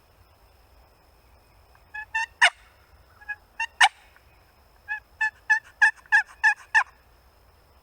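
A series of about a dozen short turkey yelps, starting about two seconds in, with two louder, raspier notes among the first few and an even run of yelps near the end.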